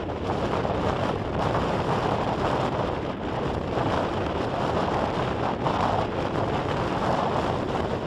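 Storm wind blowing hard and steadily across the microphone, a dense rushing noise with a low rumble beneath.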